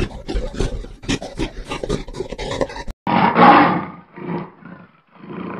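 A quick run of short rough grunting pulses. About three seconds in, the sound cuts suddenly to a leopard's harsh rasping roar: three calls, the first the loudest and each after it shorter and fainter.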